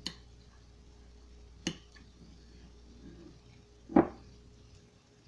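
Metal spoon clicking twice against a glass mixing bowl of bean salad as it stirs, then a louder, duller knock about four seconds in as a spoonful is lifted out.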